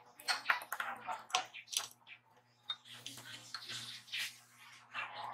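Motorcycle roller chain clinking and rattling as it is handled around the metal former disc of a scroll bender: a string of irregular small metallic clicks and rustles over a faint steady low hum.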